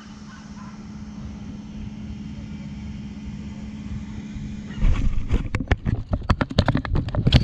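A steady low hum with a faint rumble, then from about five seconds in, footsteps in sneakers scuffing and crunching over rocks and grit, several a second.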